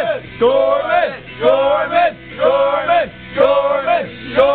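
A group of men chanting in unison, a short sung phrase repeated about once a second.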